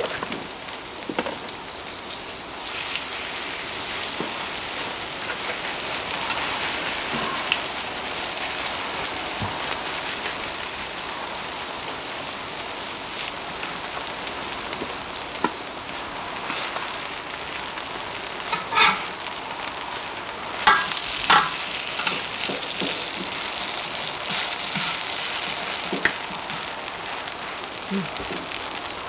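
Grated-pumpkin pancakes frying in oil on a cast-iron cauldron-lid griddle, a steady sizzle. A few short scrapes and taps of wooden and metal spatulas against the pan come a little past the middle.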